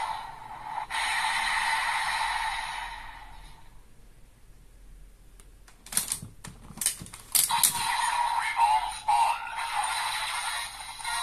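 Bandai DX Desire Driver toy belt playing its electronic sound effects and announcement voice through its small speaker, fading out about four seconds in. About six seconds in come several sharp plastic clicks as the driver is handled and rotated, then the belt plays its sound effects again.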